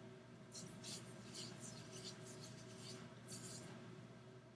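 Faint, irregular rubbing and scraping of hands handling a small dropper bottle and its cap.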